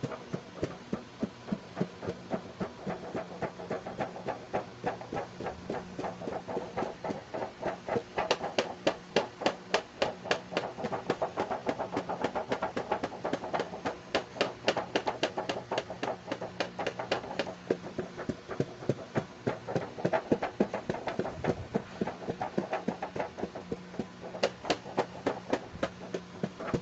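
Fingers tapping on hard plastic toy carrying cases: a long run of sharp taps, about two a second at first and quicker, around four a second, from about eight seconds in.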